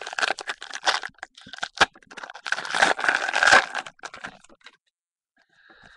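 Football trading cards being handled and shuffled by hand: rapid rustling and clicking of card stock, loudest about three seconds in, then dying away near the end.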